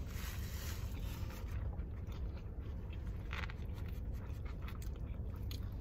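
People chewing and biting into toasted sub sandwiches, with soft crackles of bread and rustling over a steady low rumble in a car cabin; one louder crunch comes a little past the middle.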